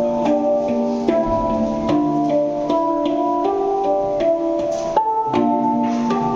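Handpan (hang) played with the hands: steel notes struck one after another, each ringing on under the next in a slow melodic pattern.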